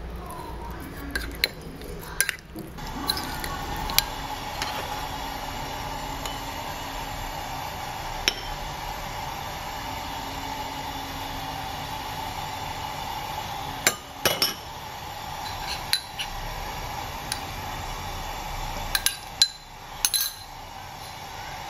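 A metal spoon clinking against a ceramic bowl while mixing chicken in its marinade. Then a steady kitchen hum, broken by a few sharp clinks of a spoon on a non-stick wok, with a double clink as the chicken is tipped into the wok near the end.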